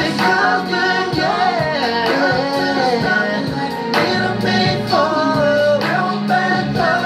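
Music: a song with a sung vocal line over instrumental accompaniment and a steady beat.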